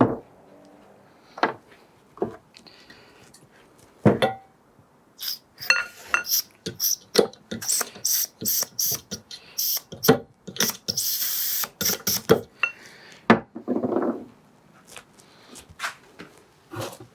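Metal tools and fork parts clinking and knocking on a workbench, the clatter thickest in the middle. A little past the middle comes a steady hiss of about a second and a half: WD-40 being sprayed onto the fork tube before it is rubbed down with emery paper.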